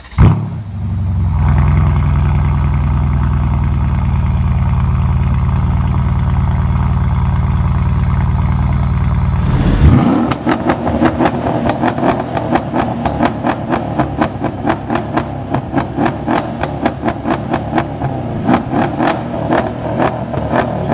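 Mercedes-Benz E63 AMG's twin-turbo 5.5-litre M157 V8 fires up with a brief loud flare, then idles steadily with a deep exhaust note. About ten seconds in, a second E63's exhaust gives a rapid string of sharp pops and crackles, about four a second.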